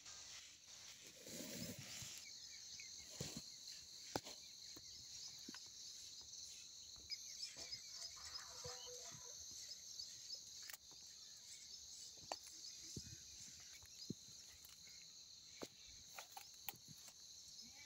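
Faint, steady high-pitched chorus of crickets trilling, with a few scattered soft clicks.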